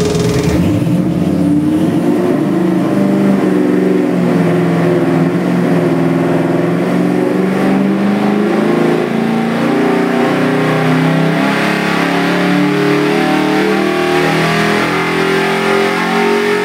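Carbureted 393 cubic-inch stroker Ford Windsor V8 pulling under load on an engine dyno, its note rising steadily as the revs climb from idle to over 5,000 rpm in a full sweep test.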